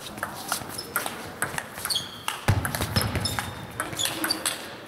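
Table tennis doubles rally: the ball clicking back and forth off bats and table in a quick, irregular run, with short squeaks of players' shoes on the hall floor.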